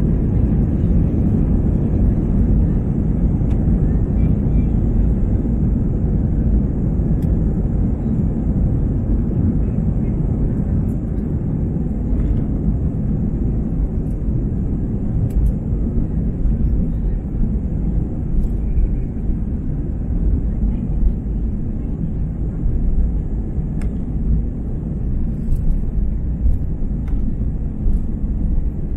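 Steady low rumble of a jet airliner heard from inside the passenger cabin as it rolls along the taxiway: engine and rolling noise with a few faint clicks.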